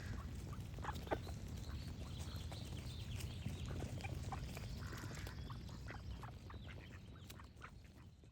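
Ducks quacking with songbirds chirping over a steady low background rumble; the whole scene fades out over the last couple of seconds.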